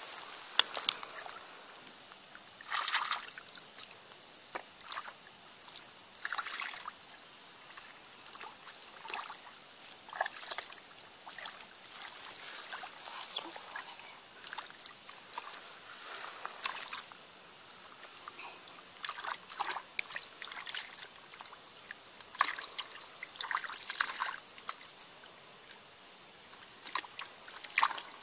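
Hands sloshing and splashing through shallow muddy water while groping in the mud for fish, in short irregular bursts a few seconds apart, the loudest about three seconds in and just before the end.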